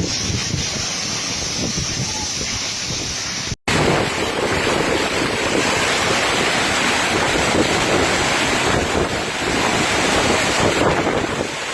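Storm: strong wind buffeting the microphone over the steady rush of a heavy downpour. A brief dropout about a third of the way in, then the noise comes back louder.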